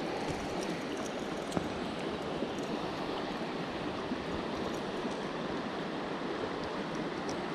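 River water flowing steadily, a constant rippling rush, with a few faint clicks.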